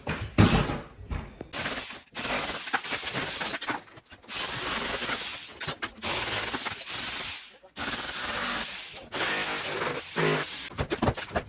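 Brick chimney being broken up during demolition: a heavy knock, then several stretches of rattling, scraping rubble and falling debris with short pauses between them.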